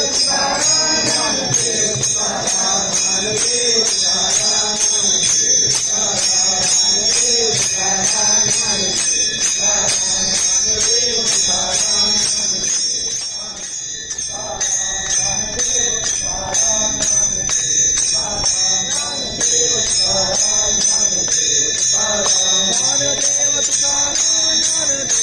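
Devotional singing over small hand cymbals (taal) clashing in a steady, even rhythm, the bright metallic ring carrying throughout.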